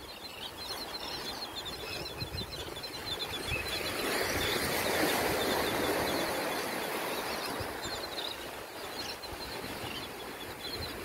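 Shorebirds on a tidal flat calling with many short, repeated chirps, over a steady wash of surf that swells in the middle.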